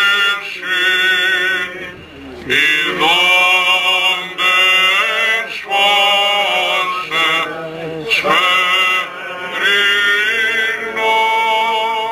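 Greek Orthodox Byzantine chant: a male voice singing long, ornamented phrases, with short pauses for breath between them.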